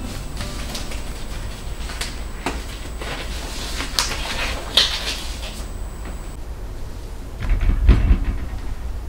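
Disposable gloves being pulled onto the hands, crinkling with several sharp snaps, then a dull low thump near the end as button mushrooms are handled in a wire basket on the counter.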